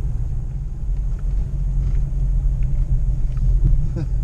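Jeep Grand Cherokee ZJ driving on a dirt road, heard from inside the cabin: a steady low rumble of engine and tyres, with a few faint ticks.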